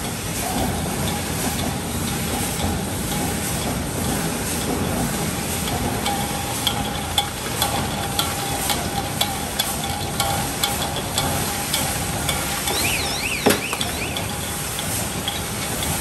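Pneumatically operated aerosol can filling and crimping line running: a steady hiss and machine noise, with repeated clicks and clanks of the cans and mechanisms that come more often from about halfway. A single sharp knock late on is the loudest sound, and a wavering high tone is heard near the end.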